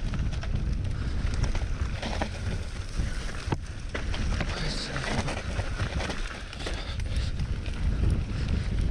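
Mountain bike descending a dirt trail at speed, with heavy wind buffeting on the microphone. The tyres run over dirt and roots while the bike rattles in quick, uneven clicks and knocks.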